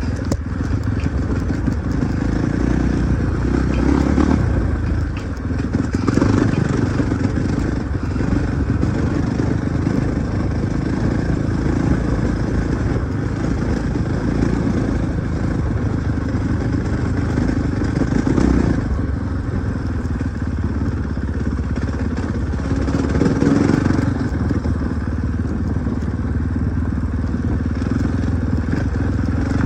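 Husqvarna 450 dirt bike's single-cylinder four-stroke engine running, swelling in loudness briefly a few times.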